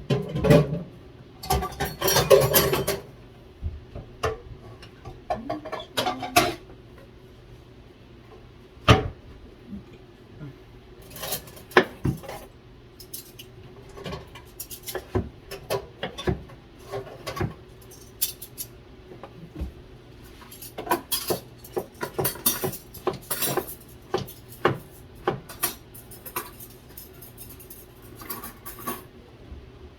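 Cooking utensil scraping and knocking against a pan and dishes in irregular clatters, with sharp clinks scattered throughout and denser bursts at the start and again about two thirds of the way in.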